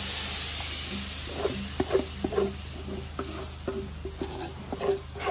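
Food sizzling in a hot pan, loudest over the first second or so, then quieter under a run of short scrapes and knocks of a utensil against the pan as it is stirred.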